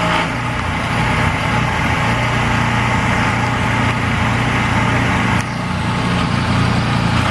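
An engine running steadily at idle, a continuous low hum with a noisy wash over it, shifting slightly about a quarter of a second in and again about five seconds in.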